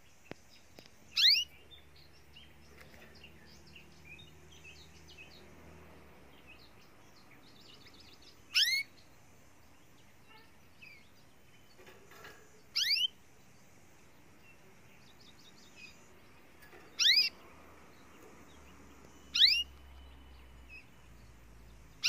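Caged domestic canary calling: a short, sharp, high call that sweeps quickly downward, given six times a few seconds apart. Faint chirps come in between.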